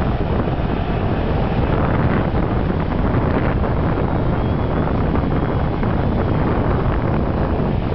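Wind buffeting the microphone over a steady low rumble from a fireboat on the water, with no breaks or distinct events.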